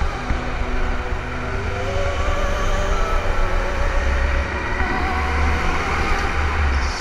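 Go-kart engine running, its revs rising and falling gently over a deep rumble.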